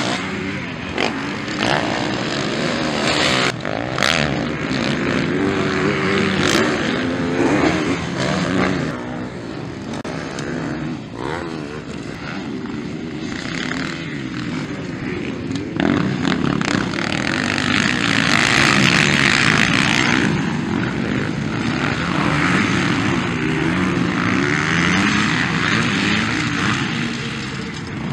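Several motocross dirt bikes racing past, their engines revving hard and falling off again and again as the riders accelerate and shift through the turns. The engine noise is loudest a little past halfway through.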